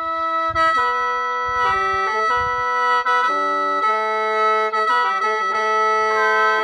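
Khaen, the Lao/Isan bamboo free-reed mouth organ, played in the lai noi mode: sustained reedy chords held over a steady high drone, with the melody notes changing about once a second.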